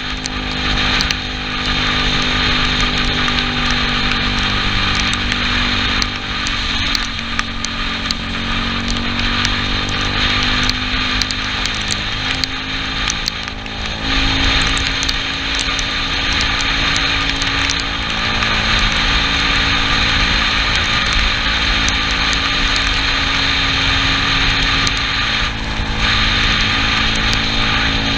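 Yamaha Cygnus scooter's single-cylinder engine running on the move, its pitch sagging about six seconds in and stepping up again around fourteen seconds in, under a steady hiss of wind and tyres on a wet road.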